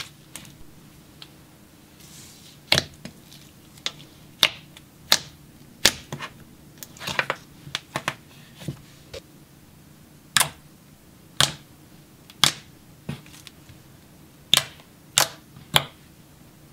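Thick, glossy slime being stretched, folded and poked by hand, giving a string of sharp bubble pops and clicks at irregular intervals, about twenty in all.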